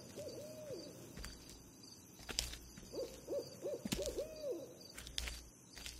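Owl hooting in short arched calls, several in a quick series about three seconds in, with a few faint knocks between them.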